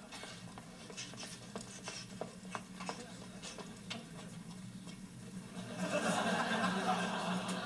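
Studio audience laughter, low at first with scattered light clicks, swelling up about six seconds in, over a steady low hum.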